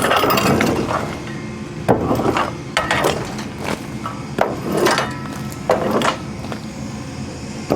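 Chunks of bark and wood debris knocking and clattering as they are cleared off a log trailer's deck: about a dozen irregular knocks, some with a short ring, over a low steady hum.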